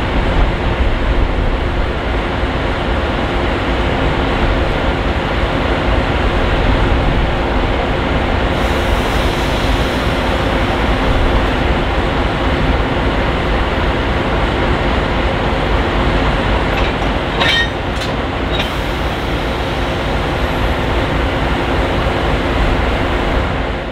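Diesel locomotive-hauled passenger train running at the station: a steady engine hum under dense rail noise, with a few short high squeals and ticks about 17 to 18 seconds in.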